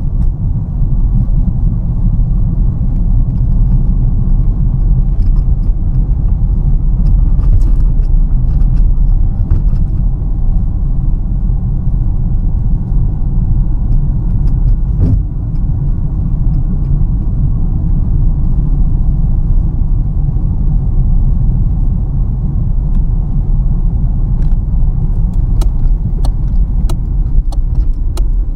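Steady low rumble of a car driving, heard from inside the cabin: engine and tyre road noise. A few faint light clicks come through, most of them near the end.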